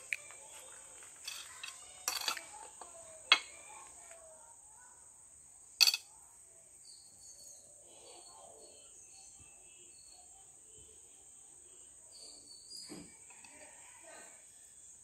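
A steady, high, even insect drone of crickets, broken in the first six seconds by a handful of sharp clinks of spoons and ceramic plates. The loudest clinks come about three and six seconds in.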